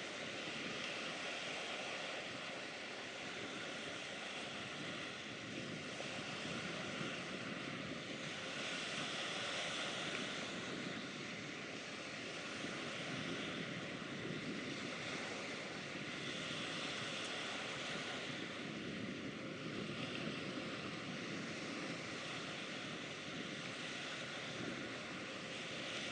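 Steady outdoor wind-and-water noise that swells and eases every few seconds, with a faint steady hum beneath it.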